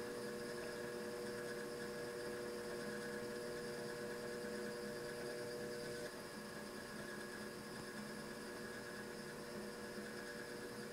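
Electric potter's wheel running with a steady hum, several fixed tones over a faint hiss. About six seconds in, one tone drops out and the hum gets slightly quieter.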